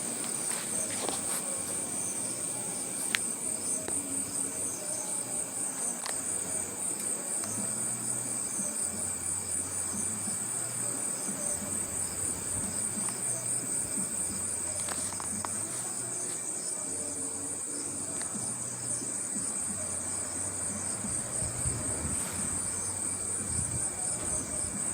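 Night insects, crickets, trilling steadily in a continuous high-pitched chorus. A faint low pulsing hum comes and goes underneath.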